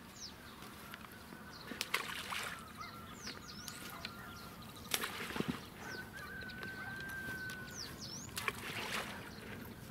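Balls of groundbait splashing into the water three times, a few seconds apart. Short, falling high bird calls sound now and then, and a thin steady whistle is held for about two seconds past the middle.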